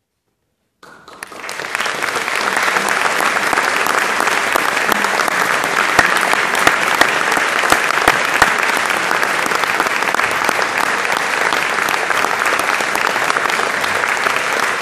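Silence for the first second, then concert-hall audience applause breaks out and swells quickly into steady, dense clapping.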